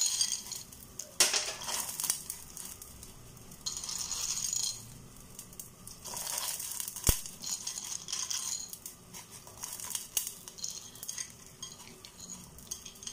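Water boiling in a stainless-steel pot as tube pasta is dropped in by hand, with spells of splashing and bubbling and a few sharp clicks of pasta knocking against the pot, the loudest about seven seconds in.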